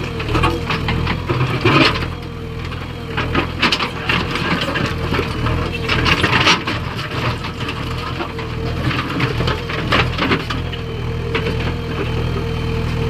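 An engine runs steadily with a wavering whine over it. Clattering knocks, as of stone being loaded, come every few seconds.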